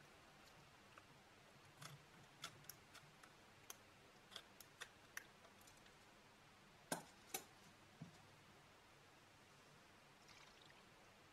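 Small scissors snipping open a latex balloon packed with water beads: a dozen or so faint, sharp snips and clicks spread over several seconds, the loudest two about seven seconds in.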